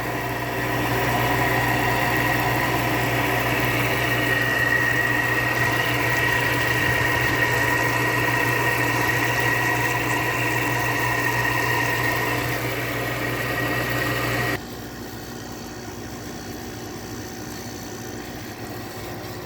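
Window air conditioner's outdoor side running: a steady compressor hum with fan noise. About two-thirds of the way through the sound drops suddenly to a quieter, thinner hum.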